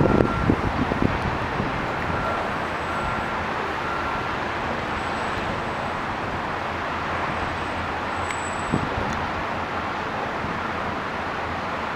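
Steady rushing noise of wind and distant city traffic far below, with gusts buffeting the microphone in the first second.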